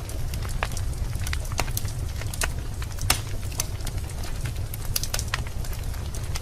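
Wood fire in a fireplace crackling: irregular sharp pops and snaps over a steady low rumble, with one louder pop about halfway through.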